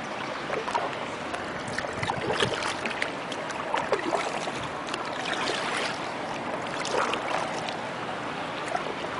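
Paddle strokes in water from a small paddled boat: irregular splashes and drips over a steady hiss of moving water.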